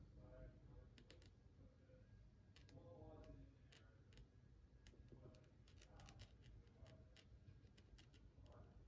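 Near silence, with faint scattered clicks and ticks from a fine-tip paint pen working on a thin plywood ornament.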